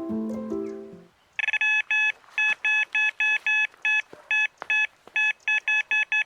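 Background music fading out about a second in, then an electronic carp bite alarm beeping as line is pulled over its sensor, in short single beeps that come faster and faster: a fish taking the bait and running.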